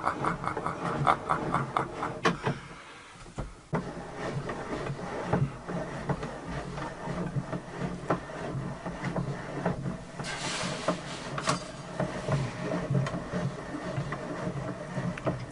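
Homemade table saw's blade-raising mechanism being worked as the blade rises through the tabletop: rhythmic clicking, about five ticks a second at first, with wood rubbing on wood. There is a short scraping hiss about ten seconds in.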